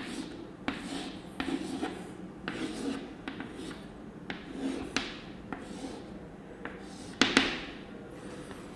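Chalk drawing on a blackboard: a series of irregular taps and short scraping strokes, the loudest a little before the end.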